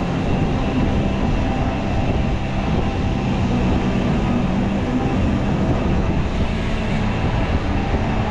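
Steady low rumble of a ride in motion, with a faint hum running through it.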